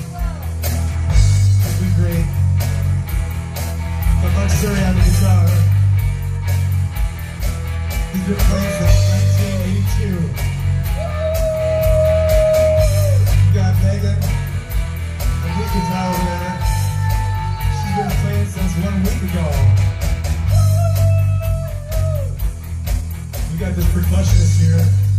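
A rock band plays live on drum kit and electric guitars, with long held notes of a second or two standing out over a steady pounding beat.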